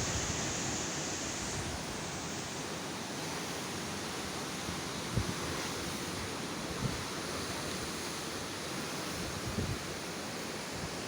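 Steady rush of strong wind and breaking waves, with a few brief low thumps of wind buffeting the microphone.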